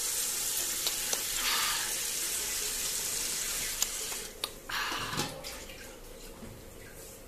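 Running tap water hisses steadily and stops about four seconds in. A few soft gulps follow as a boy drinks water from a steel tumbler.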